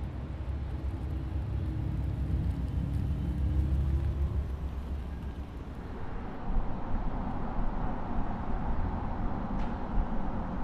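Audi Q4 Sportback e-tron Concept electric SUV driving: a low hum with a faint rising tone as it gets under way. About six seconds in it gives way to a louder, brighter wash of tyre and road noise.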